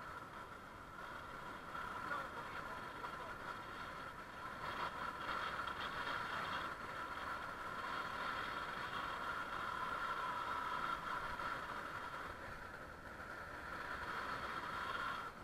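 Bicycle rolling along a smooth asphalt path, heard from a camera mounted on the moving bike: a steady mid-pitched whir of tyres and drivetrain over a rush of air, rising and easing with speed, and cutting off abruptly at the end.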